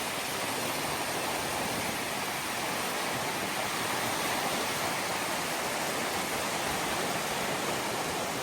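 Flooded river in spate, a steady rush of fast-moving water.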